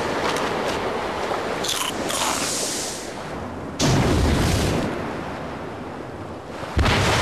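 Rushing, noisy sound effects broken by two sudden deep booms, one about halfway through and one near the end, each fading out slowly.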